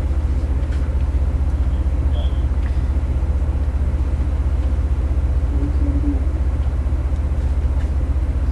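A large engine running steadily: a loud, low drone with a fast, even pulse and no change in level.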